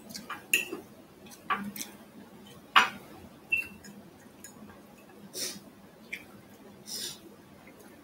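Metal fork clinking against a glass plate several times, sharp clinks in the first few seconds, two of them with a short high ring.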